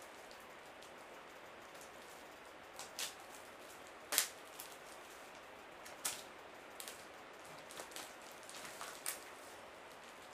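Plastic parcel wrapping being cut with a blade and pulled apart by hand: scattered sharp crackles and crinkles over a steady faint hiss, the loudest about four seconds in.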